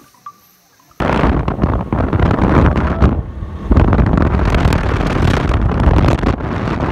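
Wind rushing and buffeting the microphone while riding in an open vehicle along a road, with the vehicle running beneath it. It cuts in suddenly about a second in and stays loud.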